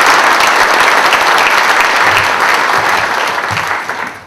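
Audience applauding, a dense clatter of many hands clapping that fades out near the end.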